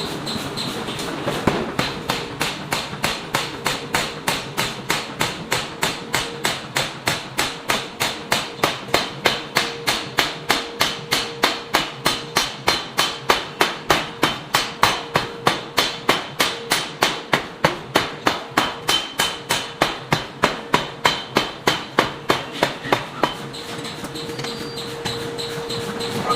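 Pneumatic forging hammer (air hammer) striking work on the anvil in a fast, even rhythm of about three blows a second, starting a second or two in and stopping near the end. A steady hum lies under it and is heard plainly once the blows stop.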